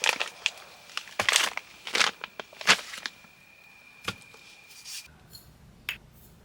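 Handling noises: a quick series of sharp rustles, crinkles and clicks, densest in the first three seconds and sparser after. A faint steady high tone runs underneath and stops about five seconds in.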